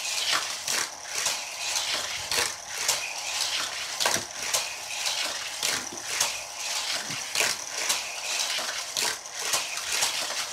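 Plastic clicking and rattling from Hot Wheels toy cars and plastic track pieces being handled, a few irregular clicks a second.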